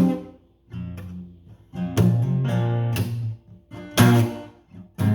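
Guitar chords strummed about once a second, each chord left to ring before the next.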